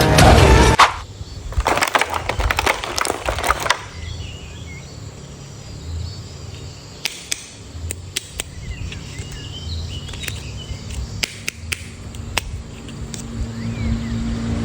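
Plastic toy packaging being handled and opened: a dense run of sharp clicks and crackles for a few seconds, then scattered single clicks.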